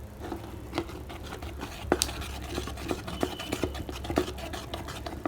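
A spoon stirring glue slime as borax activator thickens it: irregular clicks and scrapes of the spoon against the container.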